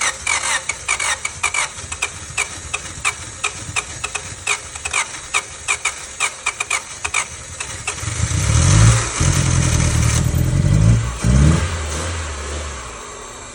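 Car engine cranked on the starter motor, a rhythmic churning of about three strokes a second, for some seven seconds; about eight seconds in it catches and runs with two brief revs, then dies down. This is the engine's first start after repair.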